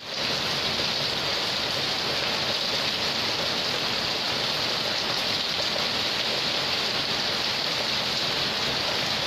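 Heavy rain pouring steadily in a wind-driven rainstorm, an even, unbroken hiss.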